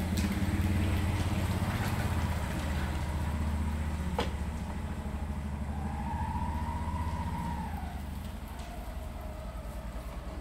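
A motor vehicle engine running, a steady low pulsing hum that eases a little near the end, with one sharp click about four seconds in.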